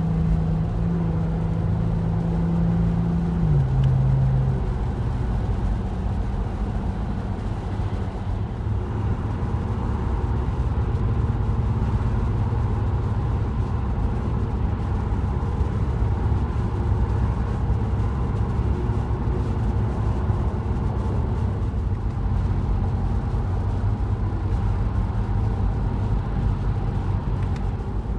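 Steady low rumble of a car driving on a snowy highway: tyre, wind and engine noise. A steady hum steps down in pitch about three seconds in and fades out a second later.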